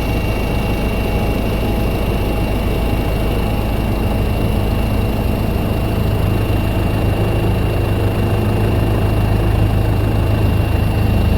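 A large engine running steadily with a deep rumble and a few steady whining tones, growing a little louder in the second half.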